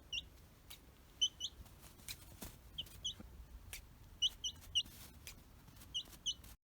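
Nagoya Cochin chicks peeping: about fifteen short, high chirps, mostly in quick pairs and small runs, with a few faint clicks between them.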